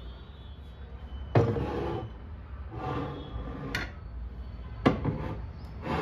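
Glass clip-top storage jars set down and slid about on a wooden shelf: a sharp knock about a second in, short scraping sounds, and another sharp knock near the end.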